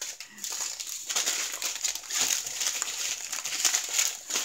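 Clear plastic bags of diamond painting drills crinkling as they are handled and folded, in an irregular run of crackles.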